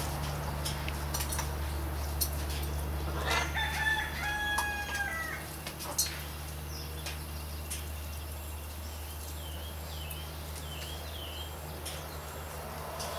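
A rooster crowing once, a long stepped call a little over three seconds in, over a steady low hum. A few short chirps from a smaller bird follow later.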